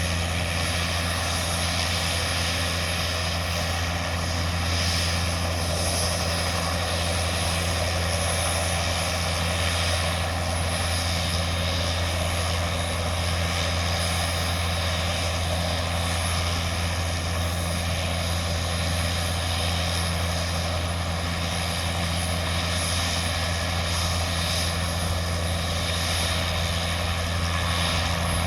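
Crop-spraying helicopter's rotor and engine, a steady drone that holds at an even level.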